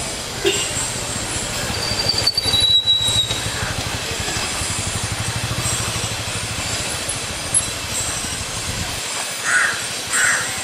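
A crow cawing twice near the end, over a steady low rumble that cuts off shortly before the caws.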